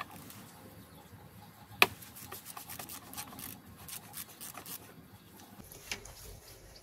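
Ratchet and 32 mm socket undoing the oil filter housing cap on a BMW 730d diesel: a sharp crack about two seconds in, then a run of light clicks with some rubbing.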